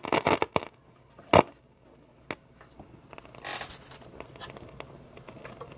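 Soft, scattered clicks and crackles, with one sharper click about a second and a half in and a short burst of hiss about three and a half seconds in.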